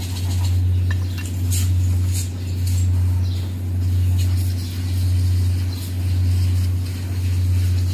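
A steady low machine hum that swells and eases about once a second, with a few faint metallic clicks from a socket wrench working on engine cylinder head bolts.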